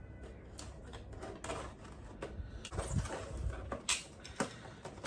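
Scattered clicks, taps and rustles of a Transformers figure and its packaging being handled and opened, with a few duller knocks about three seconds in.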